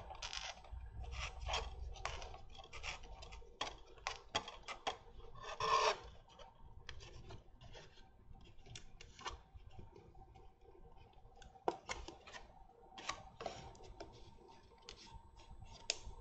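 Small handling noises from hands working on a scale model kit on a cutting mat: scattered light clicks, taps and scraping rubs, with a longer rustle about six seconds in.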